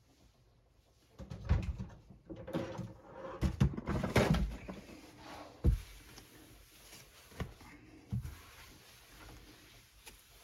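Work counter being wiped down and things on it handled: a few seconds of irregular rubbing and rustling with low thuds, a sharp knock a little before the middle, then a few lighter taps.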